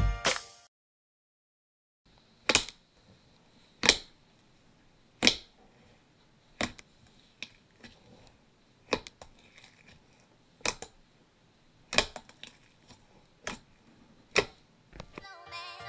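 Thick white slime popping and clicking as fingers press and squeeze it in a plastic tub, a sharp pop about every second and a half with softer ones between. Music stops at the start and fades back in near the end.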